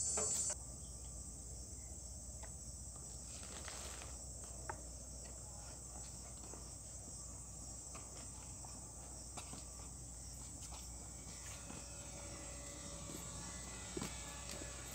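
Steady high-pitched chorus of insects, a thin continuous trill with no pauses.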